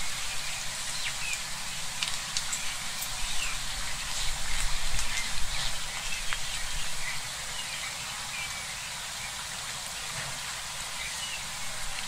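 Open-air mudflat ambience: a steady hiss with faint, short high chirps of small birds scattered throughout, and a low rumble that swells about four to six seconds in.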